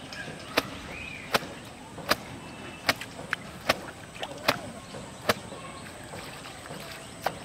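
A series of sharp knocks or taps, about eight of them, coming roughly once a second over a faint steady background.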